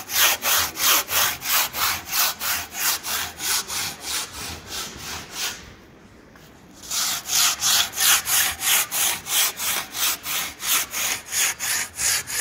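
Handsaw cutting with quick, even back-and-forth strokes, about four a second. It stops for about a second halfway through, then starts again.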